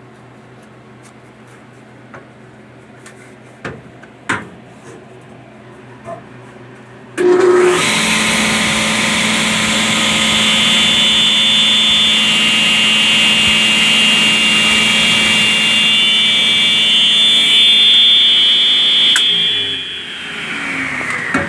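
Sears Commercial 10-inch cast-iron table saw switched on about seven seconds in, running loud and steady with a high whine over a low hum, then switched off near the end and coasting down with a falling pitch. Before it starts, a few light knocks.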